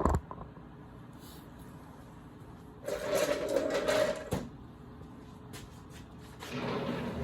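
Cordless drill whirring in two short runs, the first a little over a second long and the second shorter and lower-pitched.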